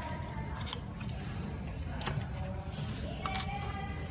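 A few small clicks from plastic wiring connectors being handled inside an opened robot vacuum, the clearest about three and a half seconds in, over a steady low hum.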